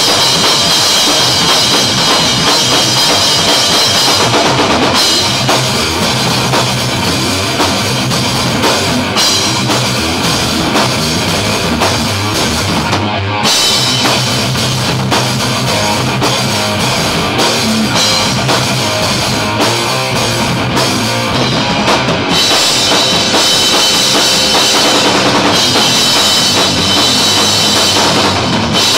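Loud live metal band jamming: a full drum kit with bass drum and cymbals driving under electric guitar, playing without a break. The cymbals drop out for a moment twice, about 13 and 22 seconds in.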